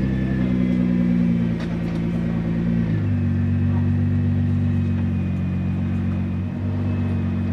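Supercar engine idling steadily just after start-up, its idle speed stepping down slightly about three seconds in.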